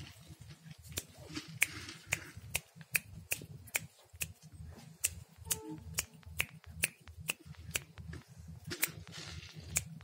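Rapid, irregular sharp clicks and taps, about three or four a second, from a clear plastic bottle and puffed rice being handled: grains dropping into and rattling against the plastic, with a little rustling of loose grains.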